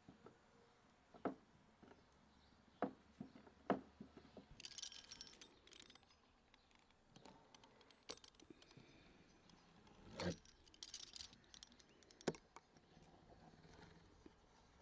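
Metal fluted pastry wheel rolling across rolled-out dough on a wooden board, its wheel rattling on its axle in short spells, with a few sharp knocks in between.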